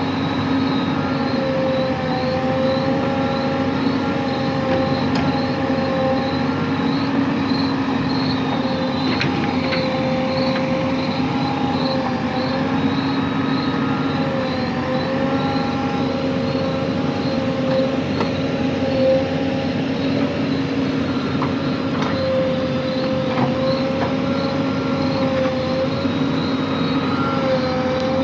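Backhoe loader's diesel engine running steadily under working load, its pitch wavering slightly up and down, with a few faint knocks now and then.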